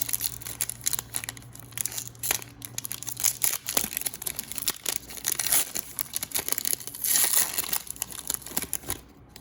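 Foil trading-card pack wrapper being torn open and crinkled by hand, a dense irregular crackling that thickens around the middle and again near the end.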